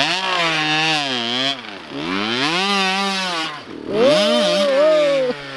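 Small kid's dirt bike engine revving on the track, its pitch climbing and falling three times as the throttle is opened and closed between shifts. Near the end the pitch drops suddenly and settles lower.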